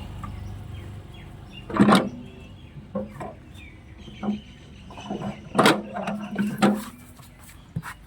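Irregular knocks and scrapes of hand work on metal parts, several separate strokes a second or so apart; the loudest come about two seconds in and in a cluster near five and a half to seven seconds.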